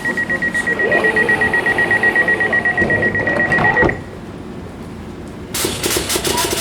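Train door-closing warning: a rapid, high-pitched beeping tone that stops abruptly about four seconds in. Near the end comes a burst of clicking and rattling.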